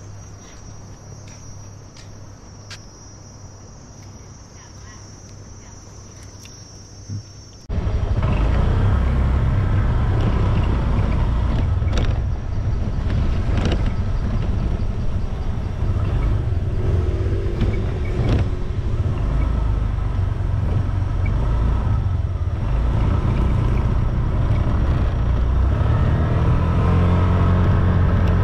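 A quiet stretch with a steady high-pitched drone over a low hum. Then, suddenly, a loud, steady low rumble of wind and a rented scooter's engine on the move, which lasts to the end.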